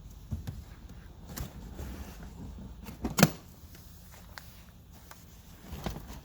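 Scattered light knocks and clunks of car interior trim being handled, with one loud sharp thump about three seconds in.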